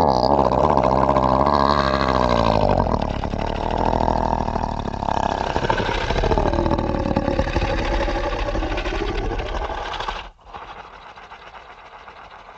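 Horror sound effect: a deep, rumbling drone whose layered pitches slide downward at first, then thicken into a dense churning rumble. It cuts off abruptly about ten seconds in, leaving a much quieter rumble.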